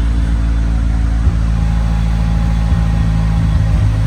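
2.3-litre turbo engine idling roughly with a few irregular stumbles: misfiring, with an erratic idle. A faint steady whine comes in about one and a half seconds in.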